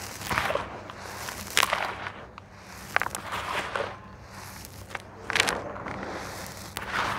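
Handfuls of dry, gritty crumbled red clay dust being scooped up and poured back into a plastic basin: a crunchy hiss of falling powder and grit, with sharp little clicks from the larger crumbs. It comes in about five separate pours.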